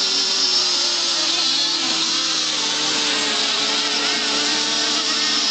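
Several RC race boats' motors running at speed together: a steady high whine made of several pitches that drift up and down as the boats race.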